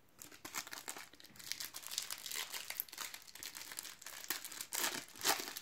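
Plastic foil wrapper of a Topps Match Attax card sachet crinkling and tearing as it is handled and torn open: a run of small crackles, a little louder about five seconds in.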